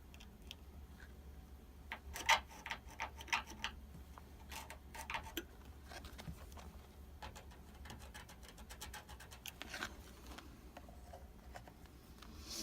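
Light clicks and taps of hands working at an electric water heater: multimeter probes and metal parts knocking against the element terminals. There is a cluster about two seconds in and another around five seconds, over a steady low hum.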